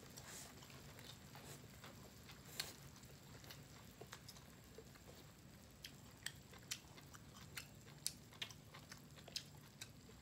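Faint close-up eating sounds of beef rolls wrapped around enoki mushrooms and vegetables: scattered wet mouth clicks and smacks at irregular intervals, coming more often about halfway through, over a faint steady low hum.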